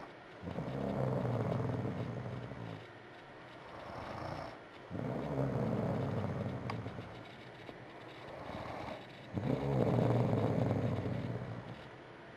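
A woman snoring in her sleep: three long, buzzing snores about four and a half seconds apart, with quieter breaths between.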